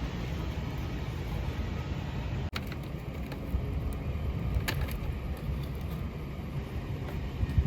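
Steady low rumble of a road vehicle driving, broken by a brief cut about two and a half seconds in, with a few light clicks later.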